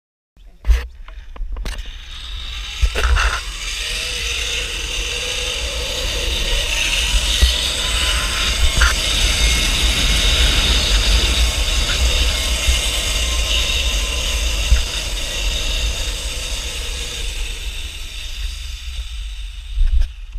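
Zip-line trolley pulleys running along the steel cable, a steady whirring hiss that builds and then slowly fades as the ride slows, with heavy wind buffeting on the helmet camera's microphone. A couple of sharp clicks just after it starts, and a thump near the end as the rider comes in to the platform.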